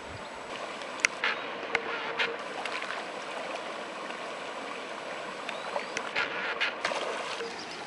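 Water lapping around a small boat, with a few sharp clicks and splashes about a second in and again around six to seven seconds.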